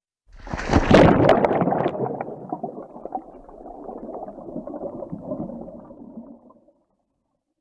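Water sound: a sudden splashing rush that is loudest about a second in, with sharp crackles, then a quieter wash that dies away over the next five seconds.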